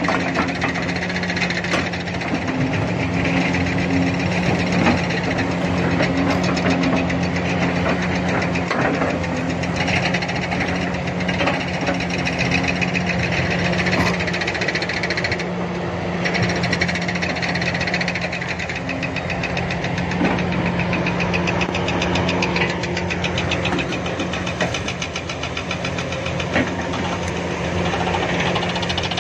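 40-ton-class Kobelco SK480 excavator's diesel engine running steadily under load, with a fast, even clatter, while its single ripper tooth breaks up hard, rocky ground with scattered knocks of rock.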